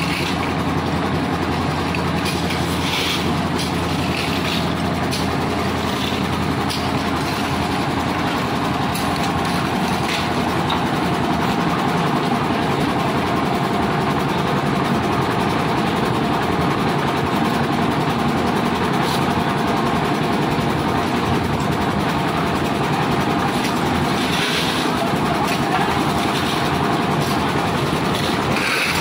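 Concrete mixer machine running steadily: its engine and turning drum make a continuous mechanical noise.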